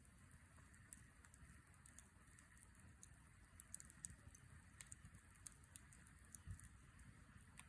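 Wood campfire crackling faintly: irregular small snaps and pops, one a little louder about two thirds of the way through, over a low steady rumble.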